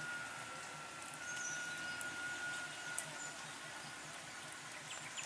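Birds chirping, with a thin steady whistle that stops about two seconds in, over the low, even throb of an auto-rickshaw engine idling.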